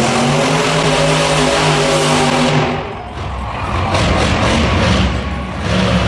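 Monster truck engine revving hard and holding high revs for about three seconds, then dropping to a lower, rumbling run.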